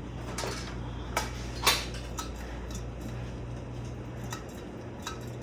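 Several ceiling fans run together with a steady low hum. Over it come a handful of sharp clicks and light metallic clinks, the loudest about a second and a half in, as the fans' speed controls are switched.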